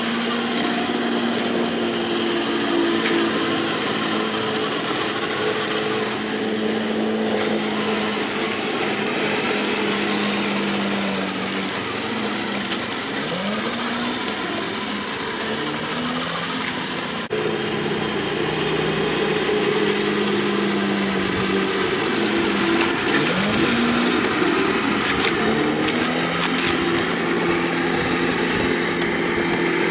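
Recorded Tiger I tank engine played back as a model tank's engine sound: a heavy engine running steadily, its revs rising and falling a few times, with an abrupt edit about halfway through.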